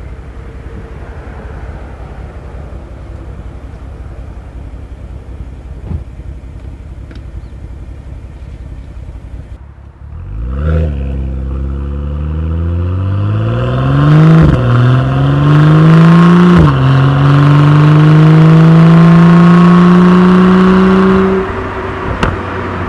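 BMW N55 turbocharged inline-six with a custom exhaust, running low and steady, then pulling hard under acceleration: the pitch climbs, drops sharply at two upshifts, climbs again through a longer third pull, and cuts off near the end as the throttle is lifted.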